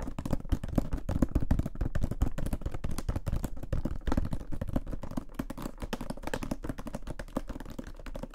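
Fingertips tapping rapidly and continuously on a cardboard product box, several quick taps a second, as ASMR tapping.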